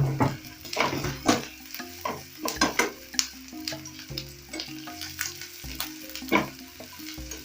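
Chopped onions and ginger sizzling in hot oil in a pan while being stirred, the spoon scraping against the pan at irregular moments.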